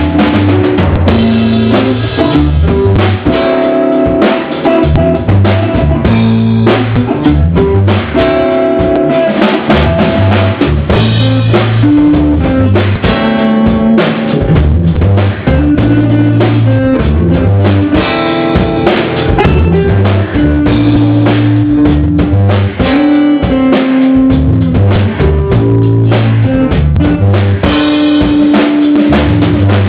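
Loud music from a drum kit and guitar: a steady beat with bass drum and rimshots under changing bass notes.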